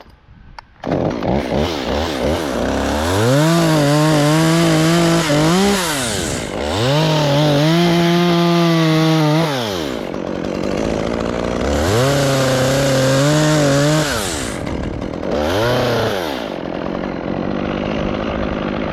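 A chainsaw starts about a second in and is run up to full throttle in four bursts, dropping back to idle between them, as it cuts into the trunk of a pine being topped.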